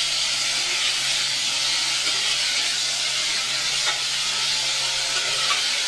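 Chopped turnips sizzling steadily in hot oil with fried onions in a metal pot, while a steel spoon stirs them, giving a couple of light scrapes near the end.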